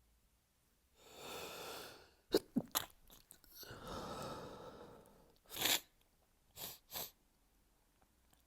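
A person sneezing in an allergy fit: a drawn-in breath, then a sharp sneeze about two and a half seconds in, a long breath out, and three shorter sharp bursts near the end.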